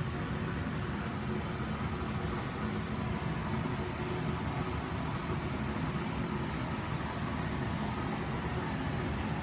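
Steady outdoor rushing noise with nothing standing out from it.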